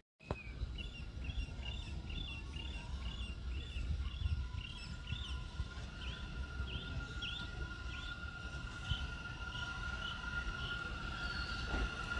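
Open-air outdoor ambience with a low background rumble, over which a bird calls in short repeated chirps, about two a second, thinning out later. A steady high ringing tone grows stronger near the end, the rails singing as a subway train approaches.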